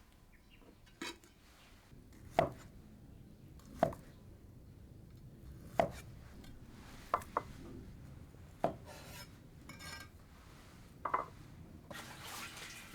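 Kitchen work: about eight sharp single knocks, spaced irregularly a second or two apart, with faint scraping between them, like a knife or utensil on a wooden board. A rush of running water starts near the end.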